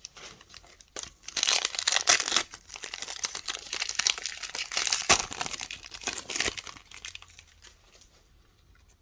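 Trading-card pack wrapper being torn open and crinkled, a few seconds of dense crackling that dies away near the end.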